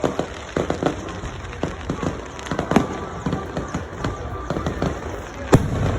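Fireworks going off in a quick, irregular series of bangs and pops, with one loudest bang about five and a half seconds in.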